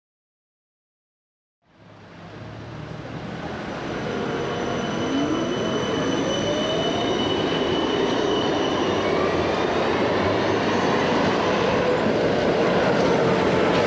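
A train running on rails: a loud rumble that builds up over a couple of seconds and then holds steady, with a whine rising in pitch and high wheel squeal on top.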